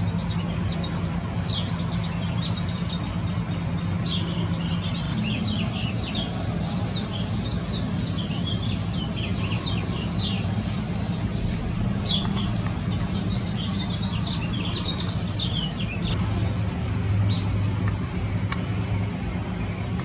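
A steady low mechanical hum, with many short, high bird chirps over it from about a second in until about three-quarters of the way through.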